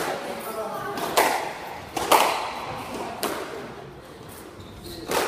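Squash ball smacking off rackets and the court walls in a rally, about five sharp hits roughly a second apart. Each hit rings briefly in the court, and the loudest comes about two seconds in.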